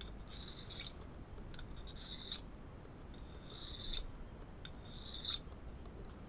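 Mora Classic knife blade drawn along a worn-in Lidl diamond sharpening rod: four rasping strokes about a second and a half apart, each ending in a short click as the blade leaves the rod. The diamond rod is biting into the blade's Scandinavian grind.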